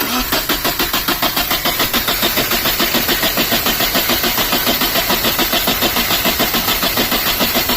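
Subaru WRX 2.5-litre flat-four being cranked over on the starter motor, turning over with an even, steady pulsing and not catching, in keeping with the car's no-start condition.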